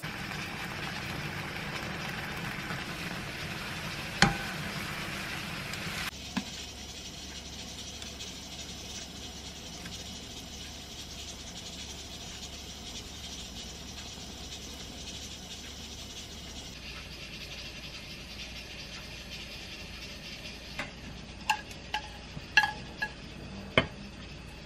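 Spinach curry and noodles sizzling in a pan while being stirred, with one knock about four seconds in. After about six seconds this gives way to a quieter steady hum. Near the end come several short ringing clinks of chopsticks against ceramic dishware.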